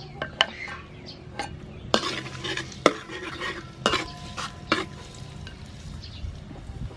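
Chopped garlic and chili sizzling in hot soybean oil in a large metal wok, stirred with a metal ladle that scrapes and clinks against the pan several times. The sizzling gets fuller about two seconds in.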